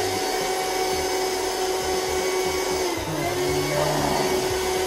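Vacuum cleaner running steadily, its motor's pitch dipping slightly about three seconds in.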